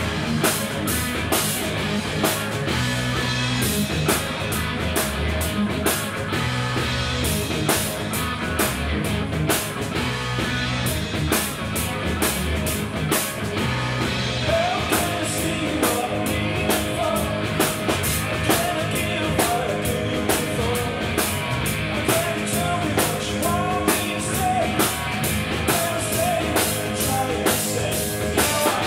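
Live rock band playing: distorted electric guitars, bass guitar and a drum kit keeping a steady beat, with a man's lead vocal coming in about halfway through.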